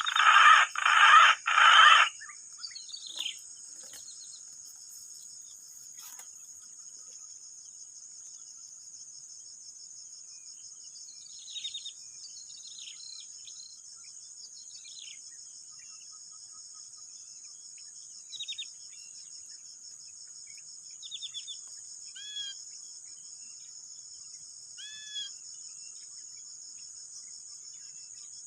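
A steady, high-pitched insect chorus of crickets or cicadas, with a few short bird chirps and falling whistles scattered through it. At the start, a loud rooster call in three pulses cuts off about two seconds in.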